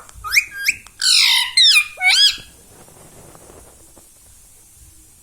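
Rose-ringed parakeet giving a quick series of shrill squawking calls, each sweeping steeply in pitch, over the first two seconds or so.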